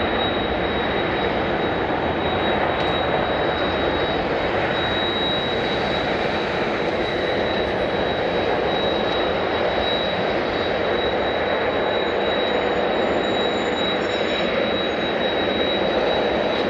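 Jet airliner engines running with a loud, constant rushing noise that neither builds nor fades, with a thin steady high tone over it.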